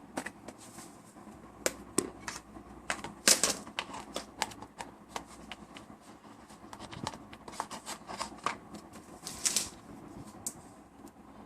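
Small hard clicks and taps at uneven intervals, with two short rustles, from hands handling a smartphone while fitting a SIM card.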